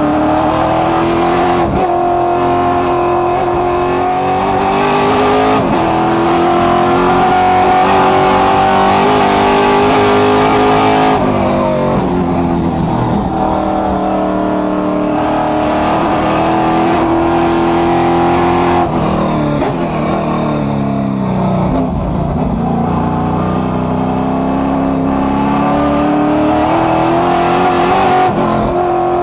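Race car engine at racing speed, heard from inside the cockpit. Its pitch climbs in long pulls broken by gear changes, drops steeply under braking about two-thirds of the way through, then climbs again.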